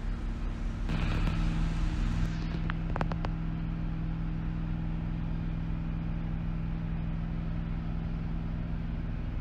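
A motor running steadily with a low, even hum. A few faint clicks come about three seconds in.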